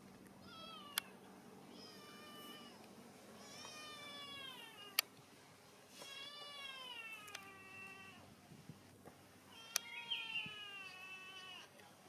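Baby macaque giving a string of about five drawn-out, high, meow-like cries, each falling in pitch. A few sharp clicks fall between them.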